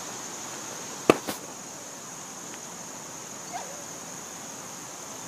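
Steady high-pitched chorus of insects, with a sharp knock about a second in followed by a smaller one.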